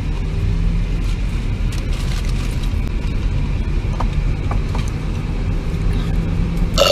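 Steady low rumble of a car driving, heard from inside the cabin, with a couple of faint clicks about four seconds in.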